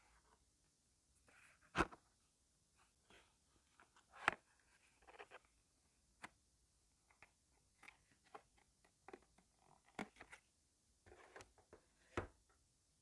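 Computer keyboard being typed on: faint, irregular keystroke clicks, with four louder strokes spread through.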